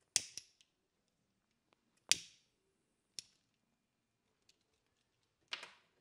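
Matches struck against a matchbox: four sharp rasping strikes a second or two apart, the last one longer with a short fizz as a match flares alight.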